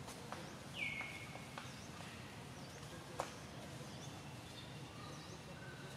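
Faint outdoor ambience: short high chirps repeat about once a second, with one brief high, falling squeal about a second in and a single sharp click a little after three seconds.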